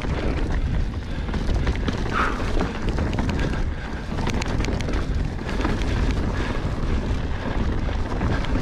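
Wind rushing over the microphone while a mountain bike rolls down a dirt trail, its tyres crunching over dirt and loose rocks and the frame and parts rattling, with many sharp clicks and knocks.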